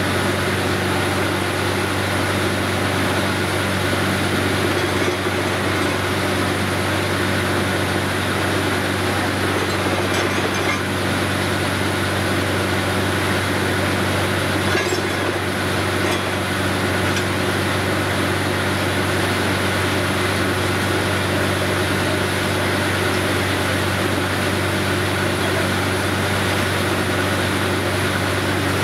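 Truck-mounted borewell drilling rig running steadily: a constant low drone from its engine and air compressor under a loud hiss of compressed air blowing muddy water up out of the borehole.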